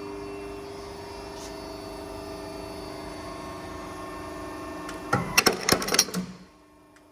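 Hydraulic power unit of a tube punching machine running with a steady hum. A little after five seconds comes a quick burst of sharp metal clanks lasting about a second, then the hum drops away to a faint electrical hum.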